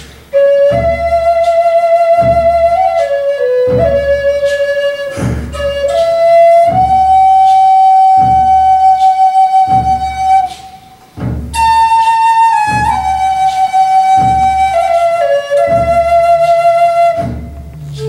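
Wooden flute playing a slow lament melody solo over a slow, steady low beat. About seven seconds in, it holds one long wavering note, breaks off briefly, then comes back on a higher note and steps down.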